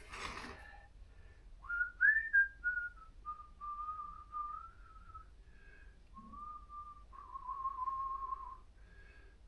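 A man whistling a slow, wandering tune, starting about one and a half seconds in, with a few short breaks between phrases. A brief noise comes just at the start.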